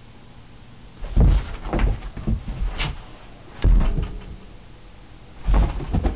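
Scattered dull thumps and knocks in a few clusters: a dog getting up off a carpeted floor and moving about.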